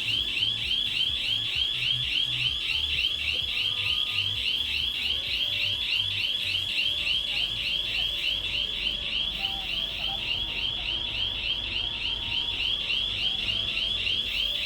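Shop's electronic panic alarm sounding after being set off: a high-pitched warbling tone that sweeps about five times a second, without a break.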